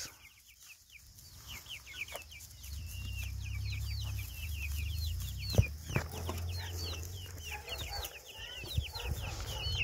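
Young chickens peeping: a steady stream of short, high cheeps, several a second. A low rumble runs under them through the middle, with a couple of soft knocks.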